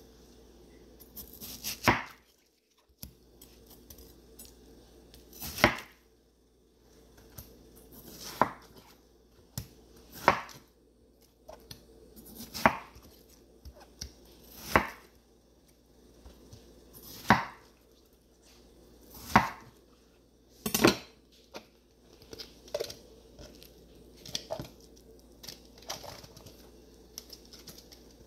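Chef's knife cutting through watermelon and striking a wooden cutting board: a sharp knock every two seconds or so, about nine cuts in all. In the last quarter the knocks give way to softer, quicker taps and clicks as the cubes are handled.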